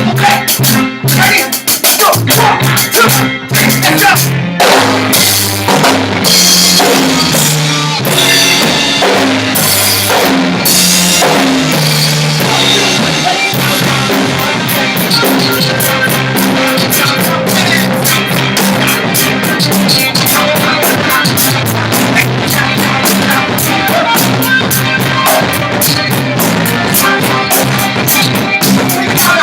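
Live band playing at rehearsal: drum kit with bass and other instruments. Choppy drum hits for the first few seconds, then the full band settles into a steady groove.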